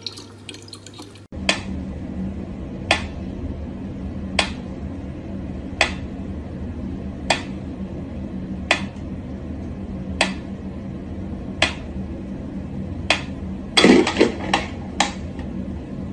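Mechanical pendulum metronome ticking slowly, about one tick every second and a half, nine ticks in a row. Near the end comes a quick cluster of louder knocks and clicks.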